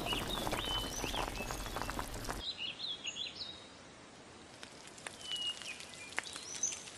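Small birds chirping in short rising and falling calls, over a faint hiss with a few clicks during the first couple of seconds; about two and a half seconds in the background hiss drops away and the chirps go on more quietly.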